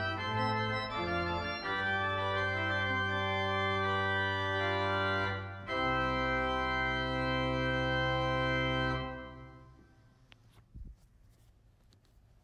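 Organ playing sustained chords as the service's closing music. There is a short break about five and a half seconds in, then a final held chord that dies away around ten seconds in. Faint room noise with a few small clicks follows.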